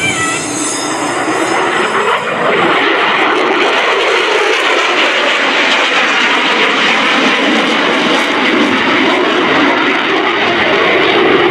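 Jet noise from an F-35C Lightning II's single Pratt & Whitney F135 afterburning turbofan as the fighter manoeuvres overhead with its afterburner lit. The noise grows louder about two seconds in and then stays loud and steady.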